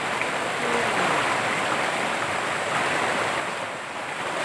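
A muddy river swollen by flooding rushes over rocks in a steady hiss of white water. It dips slightly near the end.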